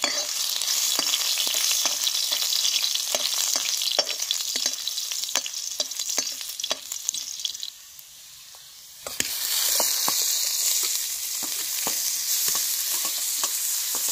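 Cumin seeds and chopped ginger sizzling in hot ghee in a metal kadhai, with a steel spatula scraping and tapping the pan in quick clicks. The sizzle drops away for about a second past the middle, then comes back with more stirring clicks once grated radish is frying in the pan.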